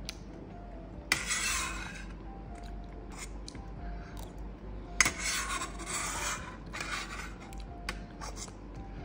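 A metal spoon scraping across a stainless steel divided plate: one scrape about a second in and a longer one about five seconds in, with a few short clinks between.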